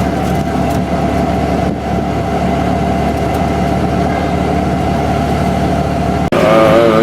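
A steady engine hum, like a motor idling, that ends abruptly about six seconds in, where a person's voice takes over.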